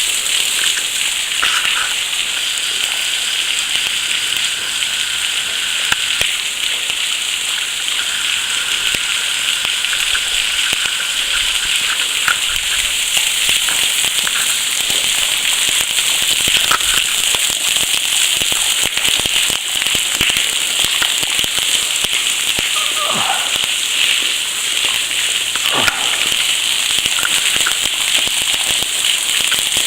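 Small waterfall falling and splashing onto ice and rock: a steady high hiss scattered with many small crackling drips.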